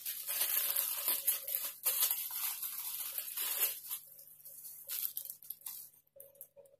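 Thin clear plastic wrapping crinkling and rustling as a doll head sealed in it is handled, thick for about four seconds, then thinning to a few scattered crinkles.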